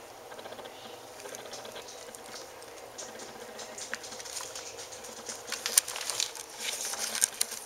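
Scottish terrier puppies squirming in their blanket right against the microphone: soft rustling of fur and bedding, with a run of sharp clicks and scratches from about five and a half seconds in.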